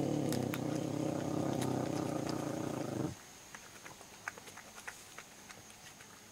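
Ocelot making a steady low rumble that cuts off abruptly about three seconds in. It is followed by faint scattered clicks as it mouths the egg.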